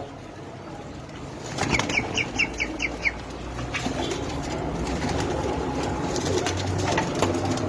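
A flock of Iraqi fighting (qitali) pigeons moving about with wing flaps and flutters. A quick run of about seven short high chirps comes about two seconds in. A low cooing murmur builds in the second half.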